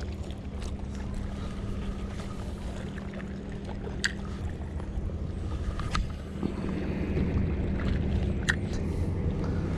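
A boat's engine running steadily, a low hum that grows louder about six and a half seconds in, with a few faint sharp clicks over it.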